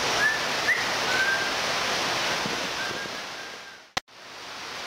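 Steady rushing outdoor background noise with a few faint, short high chirps. It fades, cuts off abruptly with a click about four seconds in, then comes back.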